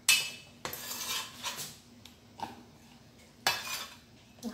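Kitchen knife knocking and scraping on a cutting board as cut tofu cubes are pushed off the board into a bowl: a sharp knock at the start, a second of scraping, then a few more separate knocks.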